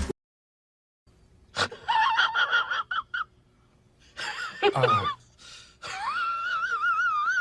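A high-pitched, wheezy, wavering voice-like sound comes in three bursts, the last one long and warbling, after a single click about a second and a half in.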